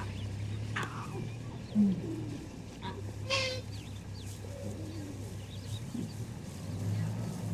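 Lion cubs mewing: a string of short, high cries, several of them sliding down in pitch, the loudest about two seconds in.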